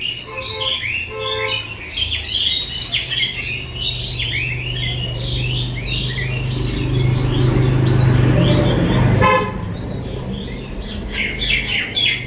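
Birds chirping busily, with two short vehicle-horn toots near the start. Under them runs a low engine hum that swells and drops off sharply about nine seconds in.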